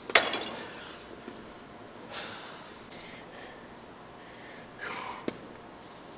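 A lifter breathing hard through a set, with forceful exhales about two seconds in and again near five seconds. A sharp knock right at the start is the loudest sound, and a light click follows soon after the second breath.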